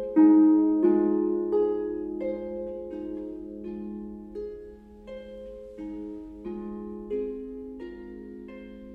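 Concert pedal harp playing a slow line of single plucked notes, about one every 0.7 seconds, each left ringing under the next. The playing grows gradually softer.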